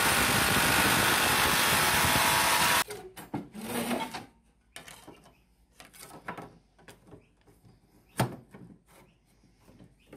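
Electric jigsaw cutting through a composite-steel plate, a steady rasping run that stops abruptly about three seconds in. Scattered clicks and knocks follow as the plate and bar clamps are handled, with one sharp knock near the end.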